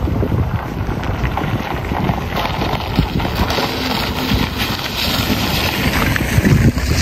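Wind buffeting the camera microphone: a loud, uneven low rumble that gusts up and down, with a brighter hiss rising for a few seconds in the middle.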